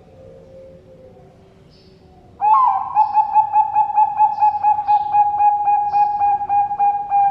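Zebra dove (Bangkok perkutut) singing: about two and a half seconds in, a loud string of rapid coos begins at about four a second and carries on past the end. Faint high chirps of small birds can be heard before and between the coos.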